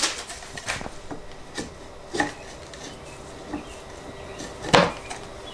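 A plywood dulcimer top and wooden neck being pushed together onto small dowels: a few scattered light wooden knocks and rubs, the loudest near the end.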